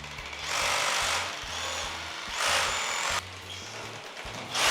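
Rotary hammer drill boring into the ceiling. It runs in bursts of about a second, twice, and starts a third time near the end.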